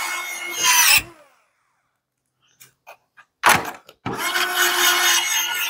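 Cordless screwdriver running as it drives Phillips wood screws into an MDF panel. One run ends about a second in with a louder surge as the screw seats. After a short pause, a brief burst starts a second run that carries on to the end.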